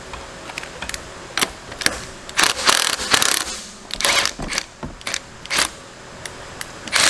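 Irregular metallic clicks and scraping of hand tools working on a transmission shaft, as a bearing is being worked off it.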